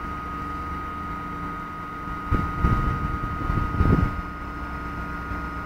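Large crawler excavator running with a steady mechanical hum and a constant high whine. From about two to four seconds in, loud low rumbling and knocking rises over it, then falls back.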